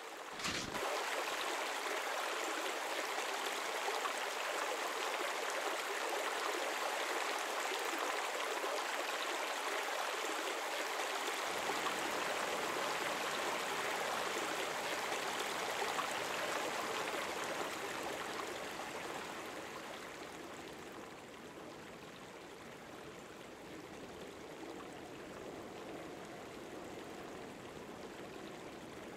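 Small river flowing, a steady rush of water that grows quieter about two-thirds of the way through.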